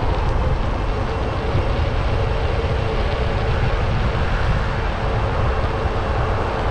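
Wind buffeting the microphone of a moving bicycle, a heavy fluttering rumble over steady street and traffic noise.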